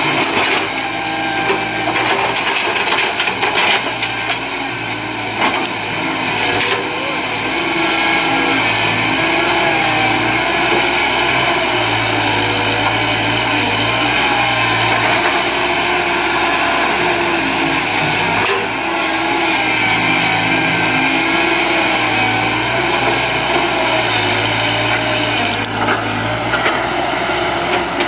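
Caterpillar 312D hydraulic excavator's diesel engine running under changing hydraulic load while digging, its note rising and falling every few seconds, with a few knocks along the way.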